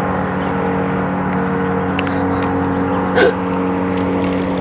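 Boat motor running steadily with an even hum. About three seconds in there is a brief wavering squeak.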